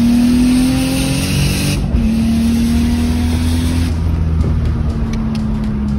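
Turbocharged 2JZ-GE straight-six heard from inside the cabin, pulling hard under boost with the revs rising. There is a quick break about two seconds in, as the gears change, then it pulls again. About four seconds in the driver lifts off and the revs fall away, with a few light clicks and rattles.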